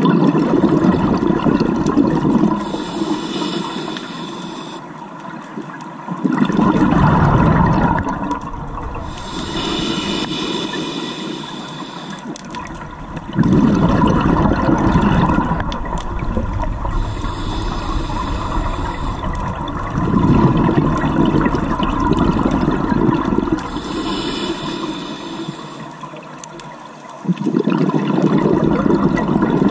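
Scuba diver's regulator breathing underwater: a hissing inhale alternating with a loud burst of exhaust bubbles on each exhale, about four full breaths, one every six to seven seconds.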